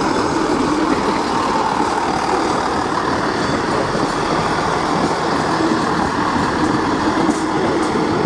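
Class 158 Express Sprinter diesel multiple unit passing close by, its underfloor diesel engines and running gear giving a loud, steady drone.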